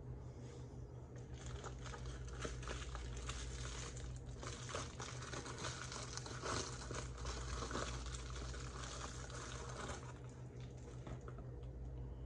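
Plastic bubble-wrap bag crinkling and crackling as it is handled and opened to take out a fishing reel. The crackle is busiest in the middle and thins out near the end, over a steady low hum.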